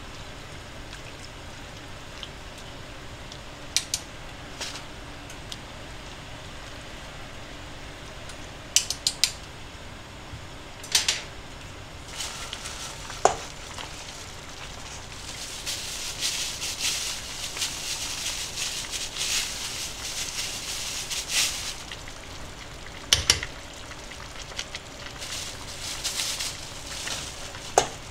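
Stainless stockpot of pork and vegetable soup bubbling on a gas burner, a fizzing, crackling simmer that grows stronger about halfway through. Scattered sharp clicks of chopsticks and utensils knock against the metal pot.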